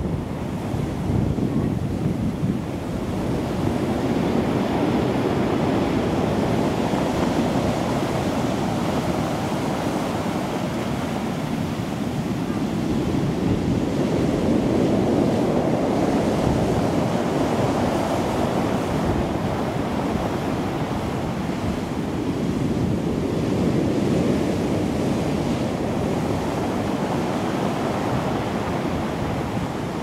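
Rough surf breaking and washing up a stony cobble beach, a continuous wash that swells and eases as each set of waves comes in. Wind buffets the microphone underneath.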